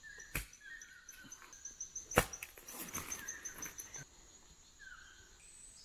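Tropical rainforest ambience: birds chirping and a rapid, even, high-pitched pulsing call that stops abruptly about four seconds in. A sharp click sounds about two seconds in.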